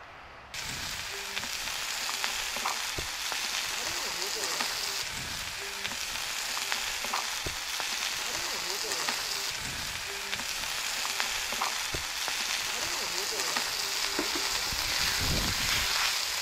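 Sausages, steak and prawn and chicken skewers sizzling on a steel barbecue hot plate over a wood fire: a steady, dense sizzle that cuts in suddenly about half a second in.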